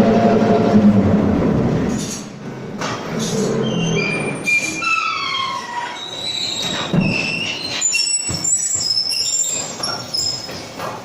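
Building-mix mixer at work: its drive hums steadily, then winds down and stops about two seconds in. High-pitched metallic squeals and screeches follow, several falling in pitch, with a few knocks in between.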